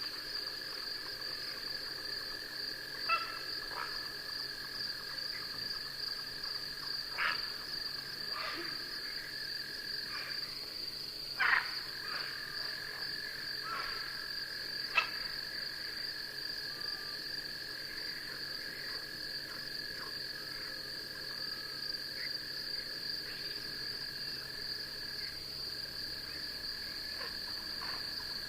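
Night insect chorus: a steady, unbroken high trill with a second, lower steady trill beneath it. A handful of short animal calls break in now and then, the loudest about eleven and fifteen seconds in.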